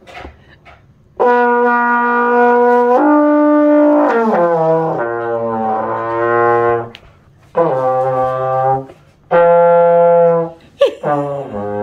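Trombone playing long held notes, sliding down to a low note about four seconds in, then three more held notes with short breaks between them.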